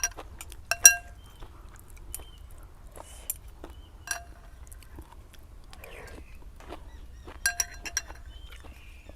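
Spoon or chopsticks clinking against a noodle bowl, a few ringing strikes: the loudest about a second in, one at about four seconds, and a quick run of three near the end.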